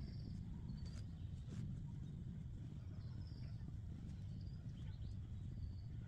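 Short high bird chirps, a few repeated trills, over a steady low rumble, with a couple of light knocks about a second in.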